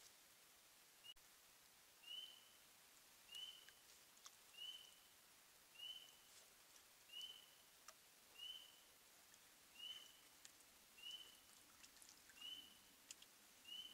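Faint, high, short peeping call from a small animal, repeated steadily about every 1.3 seconds, with a few faint ticks between calls.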